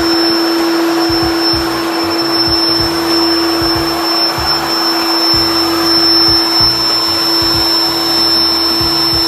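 Built-in electric air pump of a King Koil queen air mattress running steadily, an even whir with a constant hum, as it inflates the mattress.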